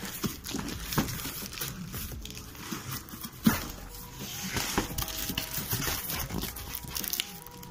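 Cardboard box wrapped in packing tape being torn and pulled apart by hand: crinkling, ripping cardboard with scattered sharp snaps, the loudest about three and a half seconds in.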